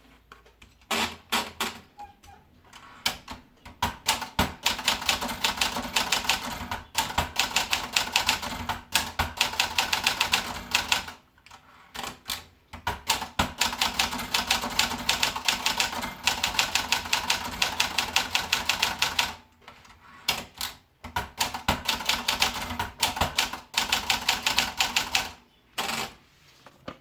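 Olympia Splendid 33 manual portable typewriter being typed on: runs of rapid key strikes, broken by a few short pauses.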